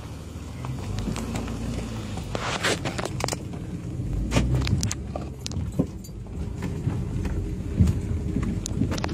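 Footsteps on a gravel and dirt road, uneven scrapes and crunches, over a steady low rumble of wind and handling noise on a phone microphone.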